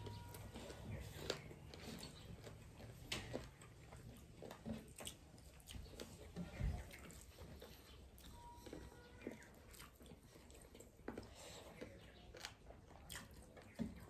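People eating rice and curry with their hands: quiet chewing and mouth noises, with scattered soft clicks and scrapes of fingers mixing rice on steel plates.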